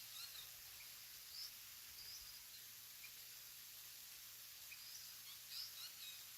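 Near silence of open countryside with faint, scattered bird chirps: a few short high calls about a second and a half in, around two seconds, and again near the end.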